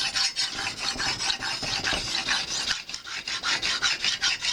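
Lansky ultra-fine hone rasping along a steel knife edge in quick back-and-forth strokes, several a second, with a short pause about three seconds in: the final polishing pass before stropping.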